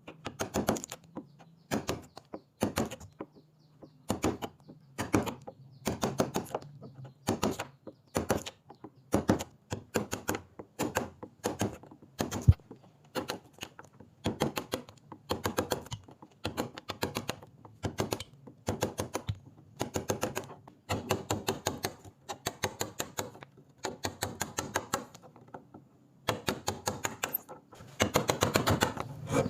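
Rapid tapping knocks of a tool on wood, coming in short clusters about once a second, denser near the end.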